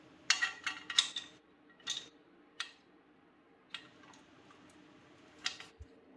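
Sharp metallic clicks and clinks of bolts and hand tools being handled while fitting a skid-plate bolt: a quick cluster in the first second, then single clicks every second or so.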